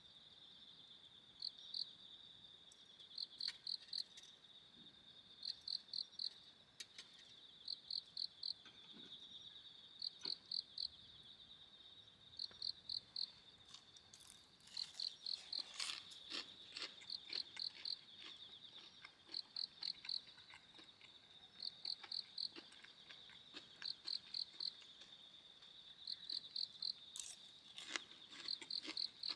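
Crickets singing: one insect keeps up a steady high trill while another chirps in short runs of three to five notes about every two seconds. A few faint clicks come in around the middle and near the end.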